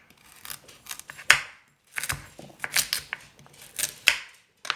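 Knife dicing carrots: irregular sharp chops, about two or three a second.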